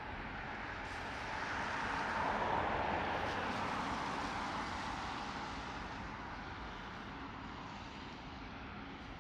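A car driving past on a wet road: its tyre hiss swells to a peak about two and a half seconds in, then fades away as it recedes, over a steady rain hiss.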